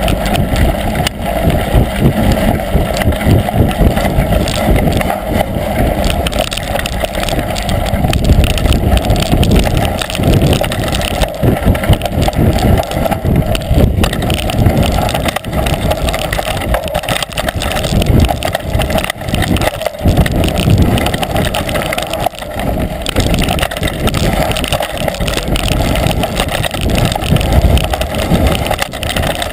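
Mountain bike riding fast down a rough dirt singletrack, heard from a camera on the rider: a loud, constant rumble of tyres and wind with frequent rattling knocks as the bike hits rocks and roots.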